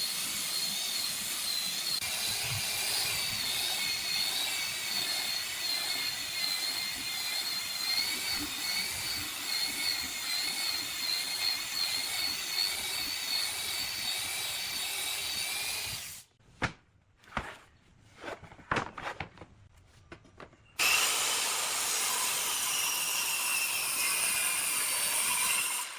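A power tool working wood, running steadily with a wavering high whine, cuts off suddenly about sixteen seconds in. A few seconds of separate sharp knocks and taps follow, and then a power tool runs steadily again near the end.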